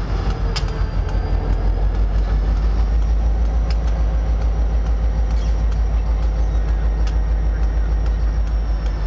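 Diesel locomotive idling close by, a steady low rumble with a quick pulsing beat, with a few light clicks now and then.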